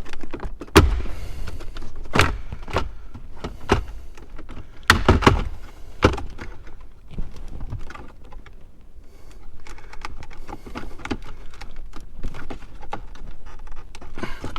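Plastic center console trim of an Infiniti Q50 being pulled up and handled: a string of sharp clicks and knocks as its retaining clips let go and the panel is moved about. The loudest knocks come about a second in and around five seconds in.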